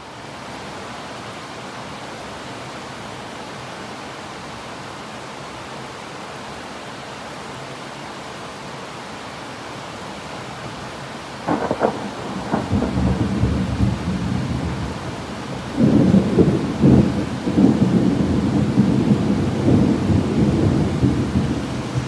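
Heavy rain falling steadily, then about halfway through a sudden crack of thunder that rolls on as loud, low rumbling, with another burst of cracks a few seconds later.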